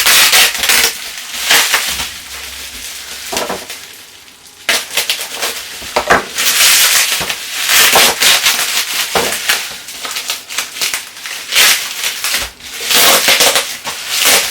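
Packaging crinkling and rustling as a boxed Funko Pop vinyl figure is handled and unwrapped, in irregular loud bursts with a brief lull about four seconds in.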